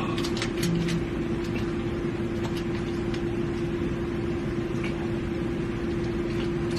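A steady hum over room noise, with a few faint clicks.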